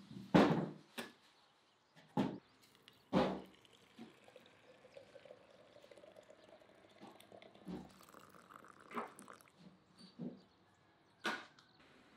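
Split firewood logs knocking together as they are loaded into a wheelbarrow, several sharp clunks. Then water pouring into a glass teapot of herbs, a steady pour whose pitch rises slightly as the pot fills, and a few scattered knocks near the end.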